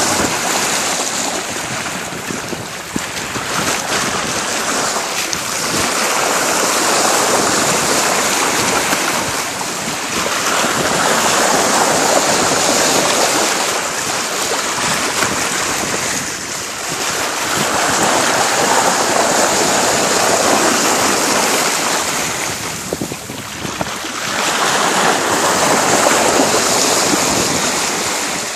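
Bow wave of a 42-foot sailboat under way, water rushing and splashing along the hull, swelling and fading every six or seven seconds, with wind buffeting the phone's microphone.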